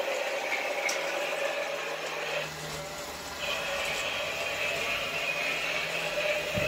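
Toy train set's locomotive running around its track: a steady motor whir with the wheels rattling on the rails, dipping briefly in loudness about halfway through.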